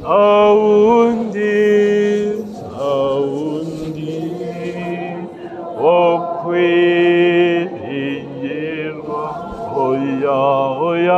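A man's voice singing a slow chanted hymn in Kinyarwanda, holding long notes that slide between pitches, with short breaks between phrases.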